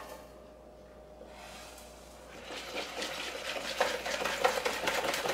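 A wire whisk beating cornbread batter in a plastic mixing bowl. The whisking starts a little past halfway and goes on in quick, even strokes that tap against the bowl.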